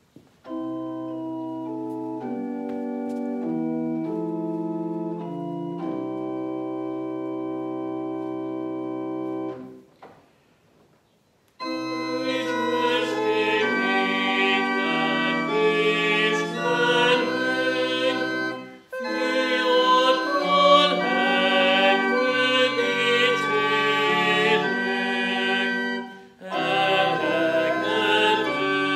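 Organ playing a hymn tune in held chords, then stopping for about two seconds. It starts again and a voice sings the hymn with it.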